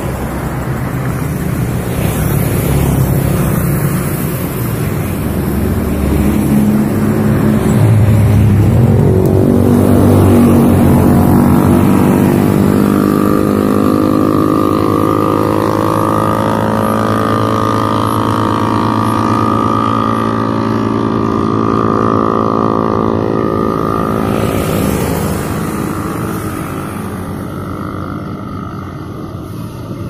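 Road traffic driving past close by on a bridge. A heavy vehicle's engine drone rises to a peak about a third of the way in, its pitch sliding as it goes by, then fades towards the end.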